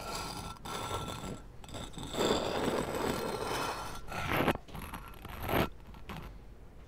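Clothing rustling and scraping against a clip-on lapel microphone as the wearer moves, in uneven noisy stretches with two louder brushes about four and a half and five and a half seconds in.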